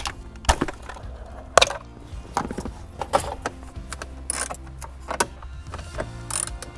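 Hard plastic clicks and knocks, about one a second, with the loudest about one and a half seconds in: a 2014 Chevy Cruze's dashboard trim and stock stereo parts being pried loose and unclipped by hand. A quiet music bed runs underneath.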